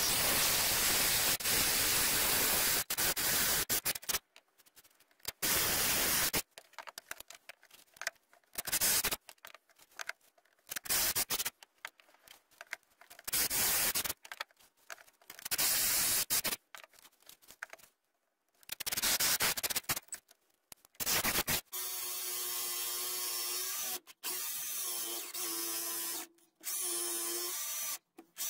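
Power drill boring into chipboard kitchen worktop with a large Forstner bit, in repeated bursts of a second or two with pauses between, clearing the waste from the marked circle. About three-quarters of the way through, a jigsaw takes over, running steadily with a motor whine as it cuts the chipboard.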